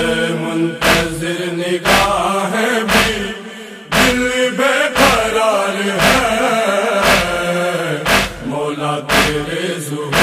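Male chorus chanting a noha refrain in unison, with chest-beating (matam) hand strikes keeping time at about one a second.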